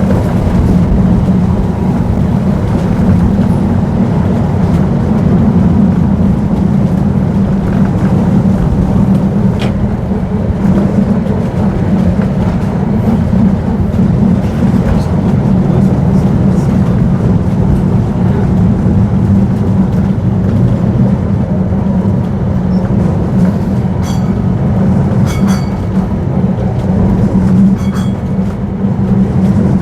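Vintage electric tram running along its rails: a steady low rumble and hum, with a few brief high squeaks near the end.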